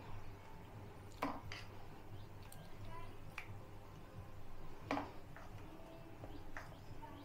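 A handful of light clicks and knocks of kitchen utensils being handled, spaced a second or two apart, over a low steady hum.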